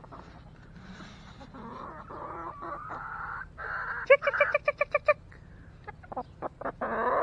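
A flock of chickens clucking and chattering as they feed. About four seconds in, one bird gives a quick, loud run of about seven squawks, and another loud call comes near the end.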